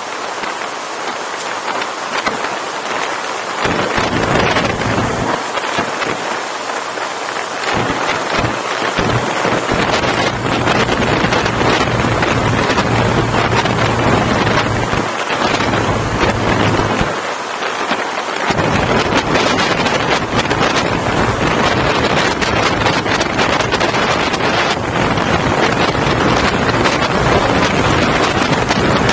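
Wind rushing over a bike-mounted camera's microphone on a BMW motorcycle at road speed, with a low engine hum that drops out several times underneath.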